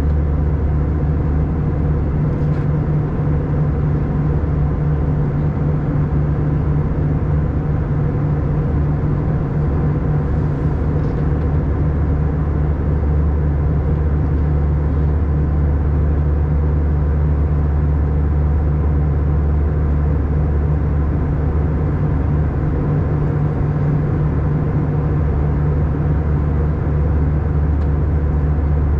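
Airbus A320 cabin noise in cruise: the steady low drone of the engines and the airflow past the fuselage, with a deep hum that holds at an even level throughout.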